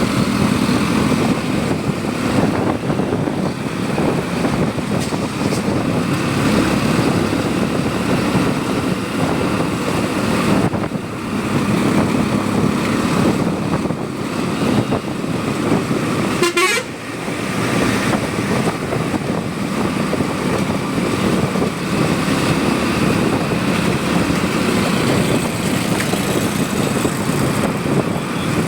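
Motorcycle ridden through traffic: the engine runs steadily under wind and road noise, with other vehicles' horns sounding. The sound eases briefly about two thirds of the way through.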